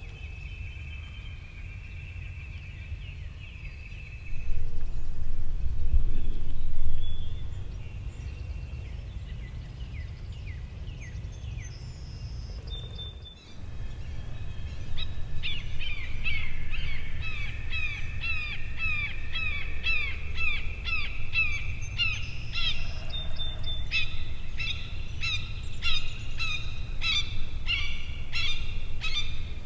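Several songbirds singing and calling over a steady low wind rumble. From about halfway, short chirps repeat in quick even series. About four seconds in, a louder low rumble swells for a few seconds.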